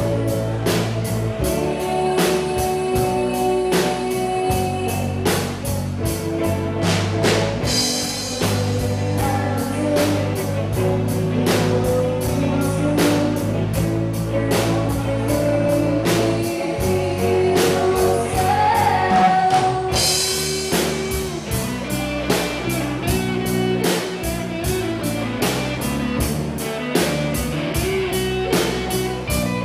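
Rock band playing a cover song: electric guitar, bass and drum kit with a sung melody over a steady beat, and cymbal crashes about 8 and 20 seconds in.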